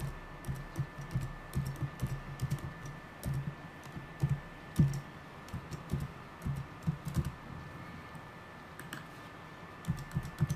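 Typing on a keyboard: quick, irregular keystroke clicks as a username is entered. They pause for about two seconds after about seven seconds, then resume near the end as the password is typed.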